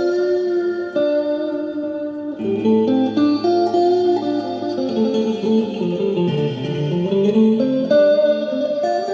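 Guitar improvising with sustained, overlapping notes. A low note is held under the melody for a couple of seconds, and about two-thirds of the way through a quick run dips down and climbs back up.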